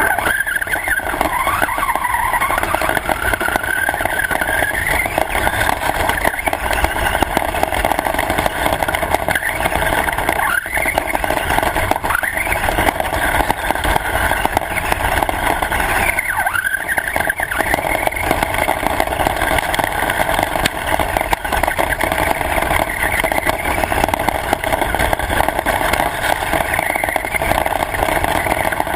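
A radio-controlled car driving, its motor whine rising and falling in pitch several times as the throttle changes, over a steady rumble.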